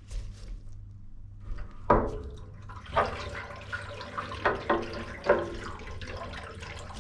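Water rushing through central heating pipework as it runs out of the radiators and refills the pipes, after the radiator valves are reopened. It sets in about a second and a half in, with several sudden louder sounds in the flow.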